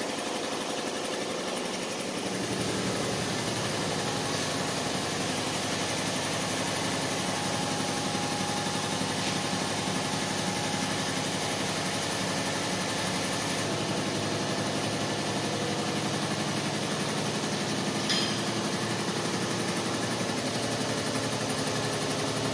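A steady, engine-like mechanical running sound, its low drone firming up about two seconds in, with one short click late on.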